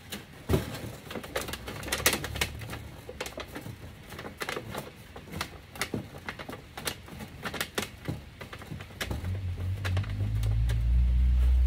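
Thin aluminum sheet crackling and popping in irregular clicks as it is pressed and bent by hand into shape around a wire tomato cage. A low rumble comes up near the end and is the loudest sound.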